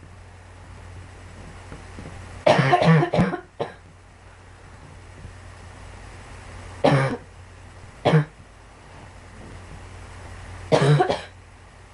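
A girl coughing in short bouts. A quick run of about three coughs comes about two and a half seconds in, then single coughs about a second apart, and a double cough near the end.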